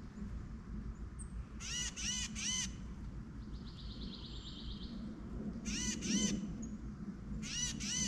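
Wild songbirds calling: three harsh calls in a quick series about two seconds in, a fast high trill around four seconds, then two more pairs of harsh calls around six seconds and near the end, over a steady low hum.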